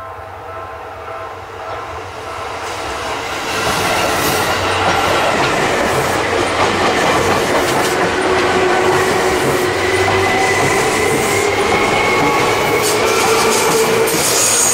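Seibu Railway electric commuter train running past close by on a curve, its wheels clattering on the rails, with steady squealing tones from the wheels on the curve. It swells over the first few seconds and then stays loud.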